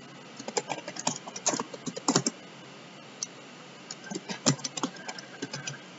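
Typing on a computer keyboard: rapid runs of key clicks, with a lull of about a second and a half in the middle before the typing picks up again.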